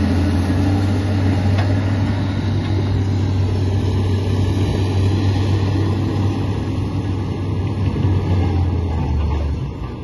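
Komatsu D85 bulldozer's diesel engine running steadily with a deep drone, which drops away near the end.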